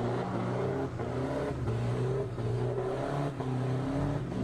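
Off-road Troller 4x4's engine revving as it ploughs through deep muddy water, the revs rising and falling over a wash of noise.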